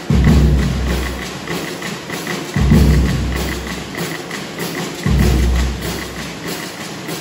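Band percussion playing a cumbia opening: a steady fast tick about four times a second under three deep bass drum strokes about two and a half seconds apart, each ringing on.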